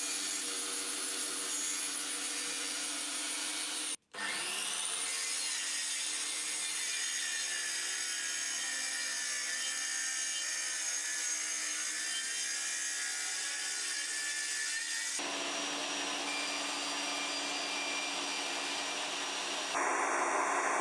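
Mafell Erika 85 table saw running and cutting resin-coated plywood, starting with a shallow 1 mm scoring cut. Steady machine noise that drops out for a moment about four seconds in, then shifts in tone a few seconds before the end.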